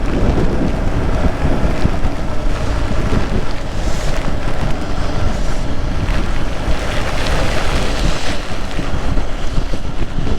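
Steady wind noise buffeting the microphone of a Yamaha R15 motorcycle ridden through heavy rain, with the engine and the rain blended into it.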